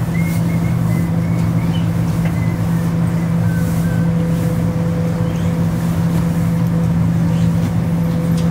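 Tour boat's motor running steadily, a loud, even low hum with no change in pitch. A few faint high chirps sound in the first few seconds.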